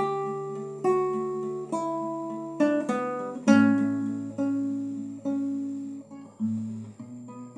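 Solo acoustic guitar playing an instrumental passage: chords plucked and strummed about once a second, each ringing out and fading before the next.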